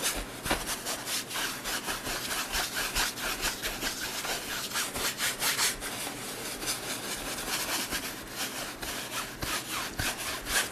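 A wide bristle brush scrubbing oil paint across a stretched canvas in quick, repeated back-and-forth strokes, each a short dry rasp.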